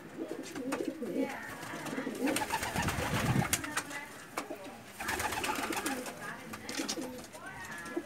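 Domestic pigeons cooing, with louder bursts of wing flapping and scuffling about two and five seconds in.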